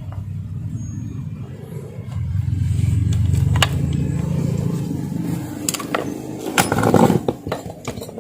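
A low engine rumble that swells from about two seconds in and then fades, followed near the end by a run of sharp clicks and knocks of small metal parts being handled.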